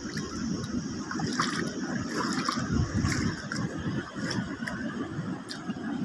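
Sea water washing and trickling among shoreline rocks, over a steady low rumble, with a few faint clicks.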